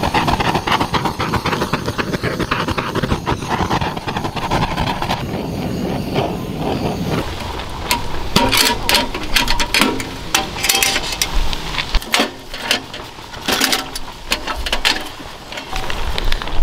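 Handheld gas torch flame rushing as it is played over a new stainless-steel wood stove to burn it in, cutting out about seven seconds in. After that come sharp metal clicks and knocks from the stove's door latch and the handling of firewood.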